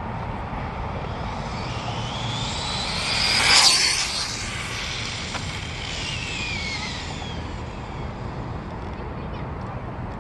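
Typhon electric RC buggy on 8S power passing at speed: its motor whine rises in pitch as it approaches, is loudest about three and a half seconds in, then drops in pitch and fades as it moves away.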